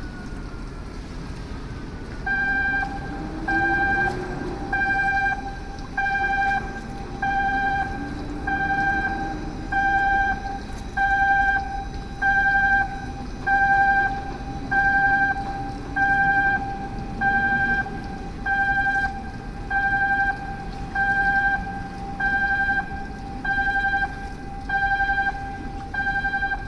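A warning beeper on container-handling machinery sounds a steady electronic beep about once a second, starting about two seconds in. Beneath it a machine engine hums, its pitch rising and falling.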